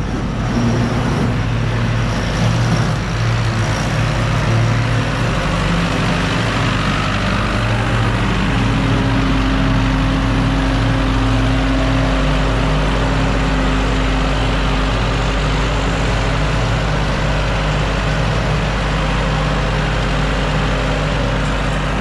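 Old Ford tractor's diesel engine running steadily, pulling and driving a feeder wagon that is putting out feed along a cattle barrier.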